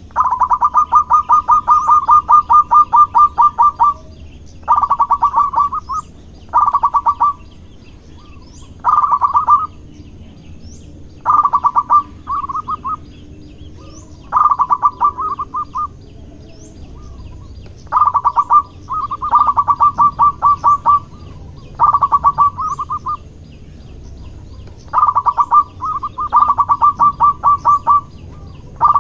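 Zebra dove (perkutut) singing: repeated phrases of fast, rippling, pulsed cooing notes, each phrase lasting one to three seconds with short pauses between. Faint high chirps of another small bird sound behind it.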